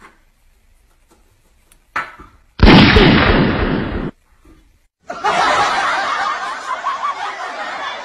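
A single loud gunshot bang about two and a half seconds in, dying away over a second and a half, as a toy revolver is pointed at the parrot for its play-dead trick. About a second later comes a few seconds of laughter.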